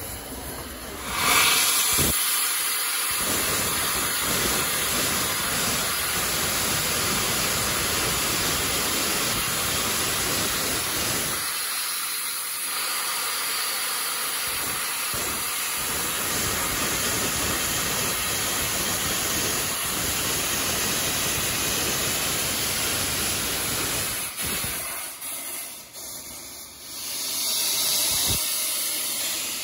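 Steam hissing from the open cylinder drain cocks of Flying Scotsman, an LNER A3 Pacific steam locomotive: a loud, steady rushing hiss that dies down about 24 seconds in and swells again near the end.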